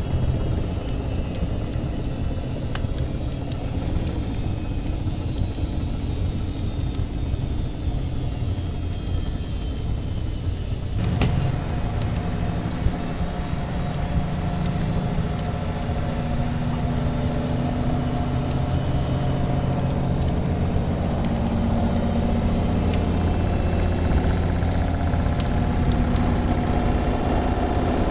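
Washing machine running with a steady low motor hum and faint crackles of a wood fire. About eleven seconds in the machine's hum changes, taking on clearer tones and growing slightly louder.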